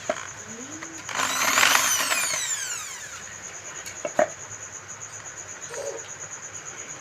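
Electric drill briefly run up to speed, then winding down, about one to three seconds in, followed by a sharp click about four seconds in. A steady, high, pulsing insect trill sounds behind it.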